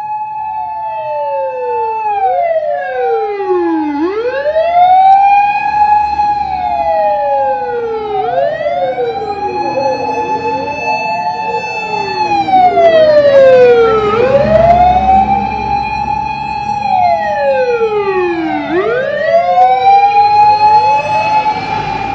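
Several fire engine siren wails overlapping out of step. Each holds a high note, slides down and sweeps back up every few seconds, over a low engine rumble.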